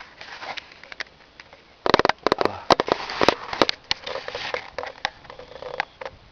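Snoring: rasping, rattling breaths broken up by many sharp crackling clicks, with a dense cluster of clicks about two seconds in and a longer rasping breath around four seconds.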